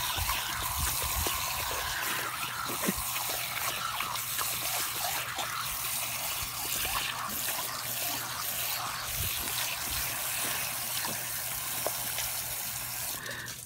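Garden hose spray nozzle running steadily, its water splashing against a Newfoundland puppy's mouth as she drinks from the stream. The spray cuts off just before the end.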